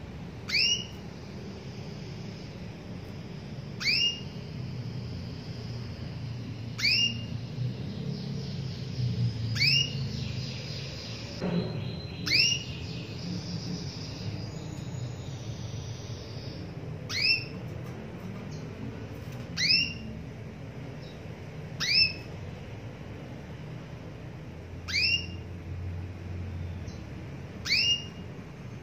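Female canary giving short, sharp contact calls, repeated about every two to three seconds. This is the call a hen uses to summon a male. Softer high twittering comes in around the middle.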